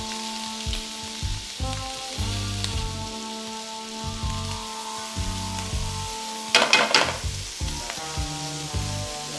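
Food frying and sizzling in a hot pan, with a loud burst of crackling sizzle about two-thirds of the way through, over background music with a steady beat.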